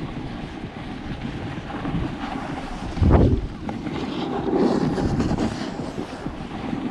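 Wind rushing over the microphone while riding downhill, with the hiss and scrape of edges sliding on packed snow; a loud wind buffet hits about three seconds in, and the snow scrape grows louder around five seconds in.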